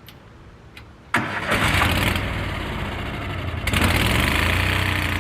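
Lincoln Ranger 10000 engine-driven welder-generator being started: about a second in it is cranked and fires up, and a couple of seconds later it settles into steady running.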